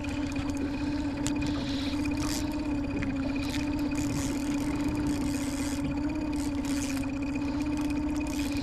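Small outboard motor on a dinghy running steadily at low trolling speed, one even hum, with short bursts of hiss over it.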